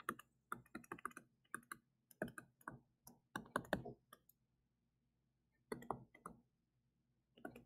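Faint, irregular clicks and taps of a stylus on a tablet while words are handwritten, with a pause of about a second and a half midway.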